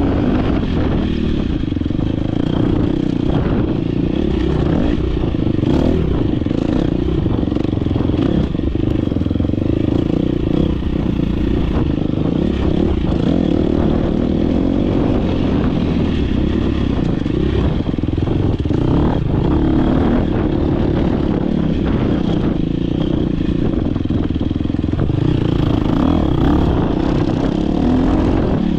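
Dirt bike engine running hard under load as the bike is raced, heard from an on-bike camera, with scattered knocks and clatter throughout.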